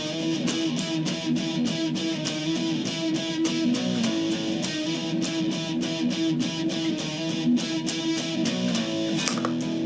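Electric guitar played through a Boss SD-2 Dual Overdrive pedal: quickly strummed chords, several strokes a second, with notes ringing between them.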